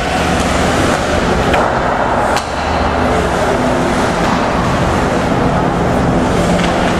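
Ice hockey arena din: a steady, loud wash of crowd and rink noise over a low hum, with two sharp knocks about one and a half and two and a half seconds in.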